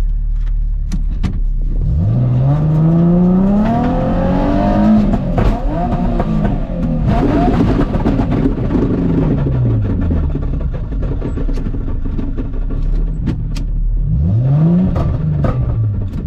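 Nissan 350Z engine revving hard on a rally stage. The pitch climbs about two seconds in, drops back a few seconds later, and climbs again near the end, with scattered sharp ticks over the engine.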